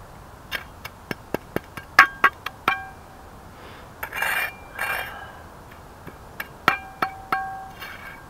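Metal hand trowel clinking in quick taps, each with a short ringing metallic tone, in a run of strikes about half a second to three seconds in and again near seven seconds. Two brief scraping sounds come in between.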